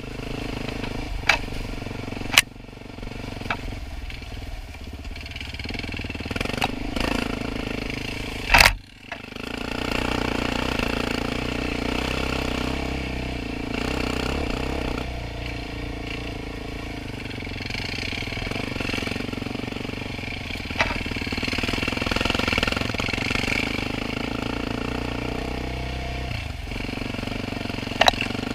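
Quad (ATV) engine running steadily while riding a rough dirt trail through brush, broken by several sharp knocks and clatter, the loudest about nine seconds in.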